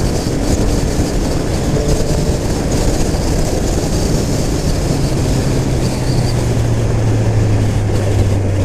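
Triumph Street Triple 765 RS inline-three engine running at highway speed under a steady rush of wind noise. From about halfway the low engine note grows stronger and drifts slightly lower in pitch as the bike slows.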